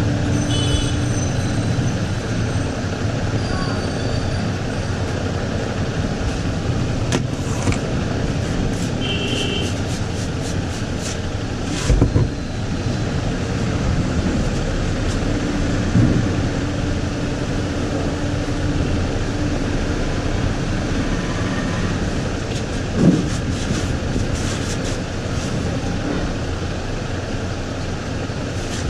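Steady rumble like street traffic, with a few dull thumps and bursts of light clicking over it.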